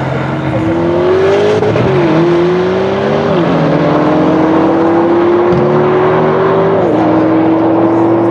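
Brabus 800 Mercedes-AMG C63 S's 4.0-litre V8 under full throttle in a drag race, alongside a second car accelerating hard. The engine note rises steadily and drops sharply at each upshift, about two seconds in, about three and a half seconds in, and about seven seconds in.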